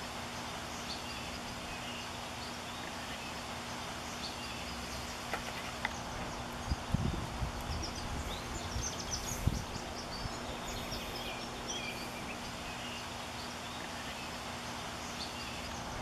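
Steady outdoor background noise with scattered short, high chirps of small wild birds, and a few low thumps near the middle.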